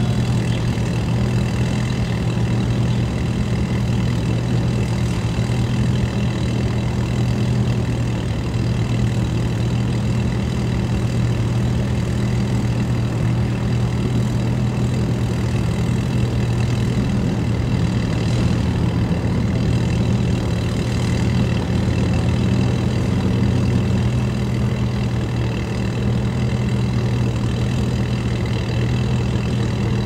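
Boat engine idling steadily at low speed, an even low hum.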